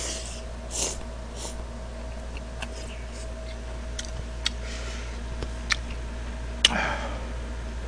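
Slurping and chewing jjamppong noodles: a few short slurps in the first second and a half, then sharp clicks of chopsticks against the soup bowl as more noodles are picked up, the loudest click near the end followed by a brief slurp or stir.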